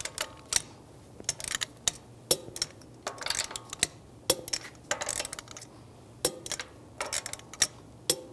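Torque wrench tightening wheel lug bolts to 92 foot-pounds in a cross pattern: short runs of ratcheting, each ended by a sharp metallic click as the wrench reaches torque, about every two seconds.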